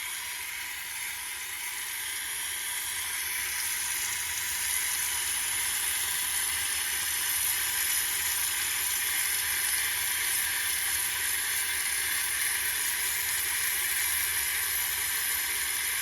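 A steady, even hiss that swells slightly over the first few seconds, then holds level.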